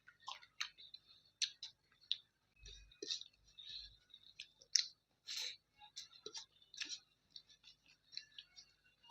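Close-up eating sounds: wet mouth clicks and smacks while chewing, in short irregular bursts.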